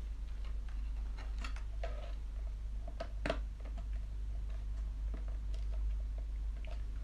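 Scattered small clicks and taps of hard plastic RC car chassis parts being handled and fitted, the clearest about three seconds in, over a steady low hum.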